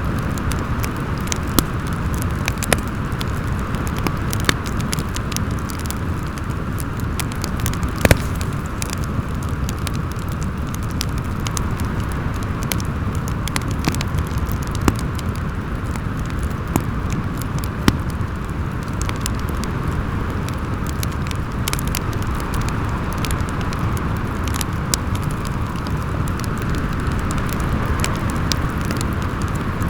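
Fireplace crackling, with scattered sharp pops (the strongest about eight seconds in), over a steady howling wind.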